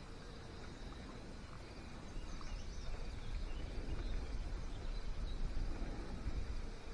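Low, uneven rumble of wind on the microphone outdoors, growing stronger from about two seconds in, with a few faint high bird chirps.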